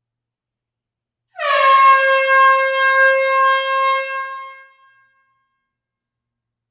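One long air horn blast starting about a second and a half in: a steady horn tone that dips slightly in pitch as it starts, holds for about three seconds, then fades away.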